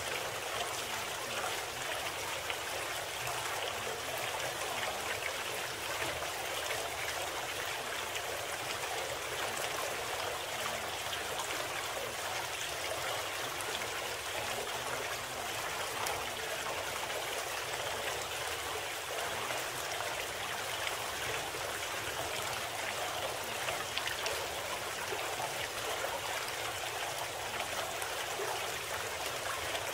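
Steady running-water sound like a flowing stream, an even trickling rush with no breaks. It is the background bed of a subliminal audio program.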